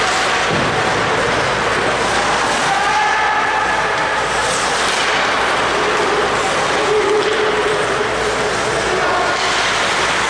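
Ice hockey play in an indoor rink: a steady, dense scraping noise of skates carving the ice over the arena's background hum, with faint distant shouts from players.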